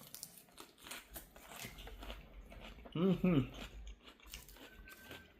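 A person chewing a mouthful of crunchy food close to the microphone, with many small crunches. About three seconds in there is a short voiced hum.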